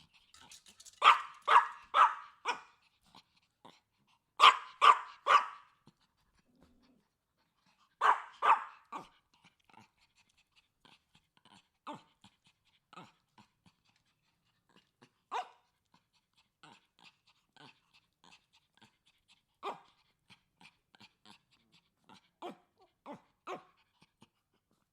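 A dog barking in quick runs of three or four loud barks, then fainter single barks spaced a second or more apart.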